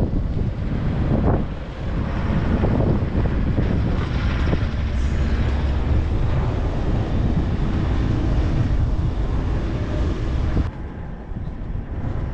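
Off-road vehicle driving on a snow-covered road: steady engine and tyre rumble mixed with wind buffeting the microphone. The sound drops in level about ten and a half seconds in.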